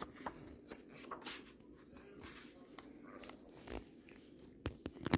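Faint rustles and a few scattered soft clicks of a paper picture book being handled, its page turned.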